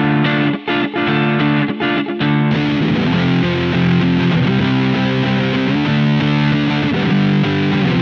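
Electric guitar played through an Electro-Harmonix Big Muff Nano fuzz pedal. A choppy riff with short breaks turns, about two and a half seconds in, into a continuous, denser fuzz tone with a brighter top as the pedal is switched on.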